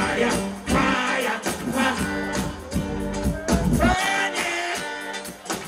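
Live reggae band playing through a stage PA with a man singing over it. The bass drops away about four seconds in.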